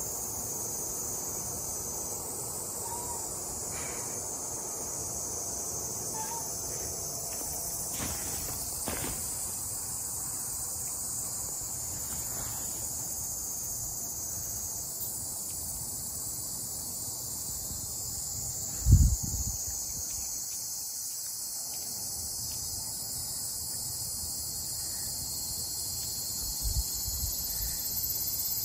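Steady high-pitched chorus of insects calling outdoors. A single low thump comes a little past the middle.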